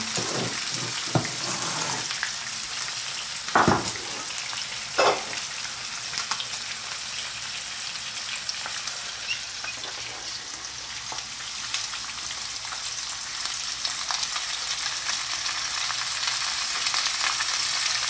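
Breaded rotan (Amur sleeper) frying in hot sunflower oil in a pan, a steady sizzling hiss. Two sharp knocks come about three and a half and five seconds in, and the sizzle grows louder near the end.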